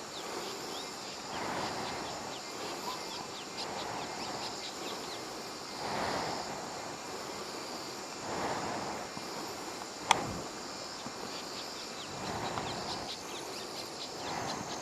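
Outdoor rural ambience: a steady high insect buzz with brief bird chirps over it, soft noisy swells coming about every two seconds, and a single sharp click about ten seconds in.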